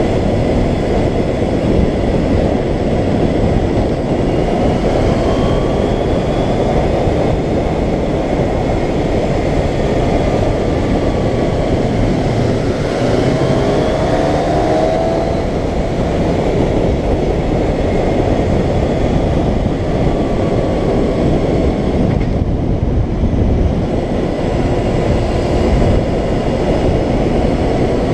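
Motorcycle engine running at road speed under loud, steady wind rush on a rider-mounted camera. An engine note rises briefly about halfway through.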